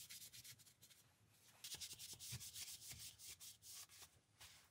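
Cloth scrubbing back and forth along a metal lathe's rusty bed slideways, wiping off rust-dissolver gel and WD-40. The rubbing strokes are faint and rapid, stop briefly about a second in, then start again.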